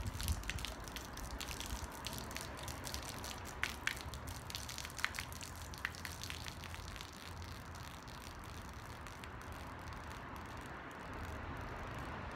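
Liquid poured from a bottle in a thin stream, splashing and spattering onto brick pavers, with many small drips and ticks. A low traffic hum rises near the end.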